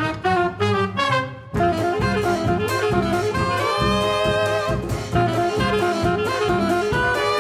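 Hot jazz band playing: a short break of drums and bowed double bass, then clarinet, alto saxophone and trombone come in together about a second and a half in, holding sustained notes over banjo, bass and drums.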